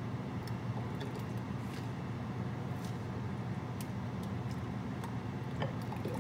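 A steady low hum with faint, scattered clicks of a metal ladle against a stainless steel pot and glass jars as hot grape juice is ladled out; one click, about five and a half seconds in, is a little sharper.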